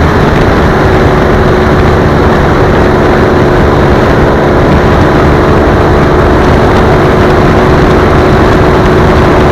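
Triumph Rocket 3 motorcycle's inline three-cylinder engine running loud and steady at an unchanging pitch, with little wind noise over it.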